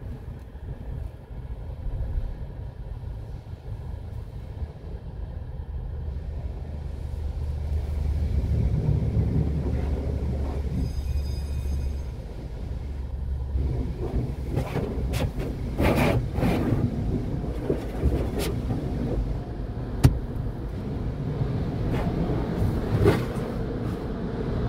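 Sonny's car wash tunnel running, heard from inside a car: a low steady rumble, with irregular sharp hisses and knocks of spraying water and machinery from about 14 seconds in.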